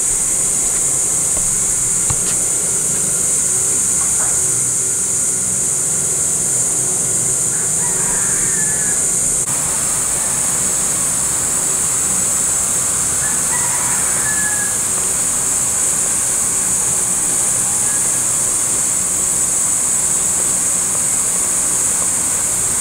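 Pot of pork belly boiling hard in water on a gas stove burner: a steady hiss and bubbling with no let-up.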